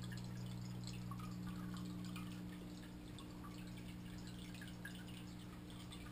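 Aquarium water dripping and trickling faintly, many small irregular drips, over a steady low hum from the tank equipment.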